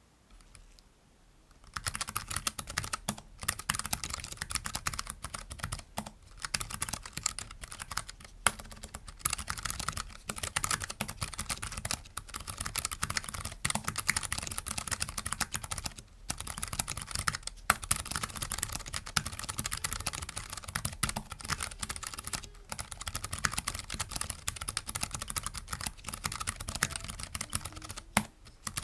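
Keychron K3 low-profile mechanical keyboard with optical brown (tactile) switches being typed on fast: a dense, continuous stream of keystroke clicks that starts about two seconds in, broken by a few brief pauses.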